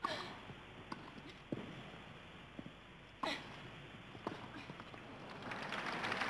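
Tennis ball struck back and forth by rackets in a rally: four sharp hits roughly a second and a half apart. Crowd applause then swells near the end as the point is won.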